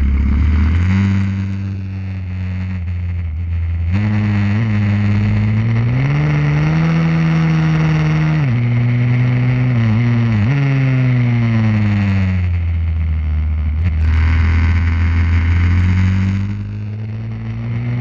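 Pit bike's small single-cylinder engine heard onboard, revving up and down. The pitch climbs steadily, drops sharply with two quick dips in the middle, falls away as the bike slows, holds steady, then eases off near the end before picking up again.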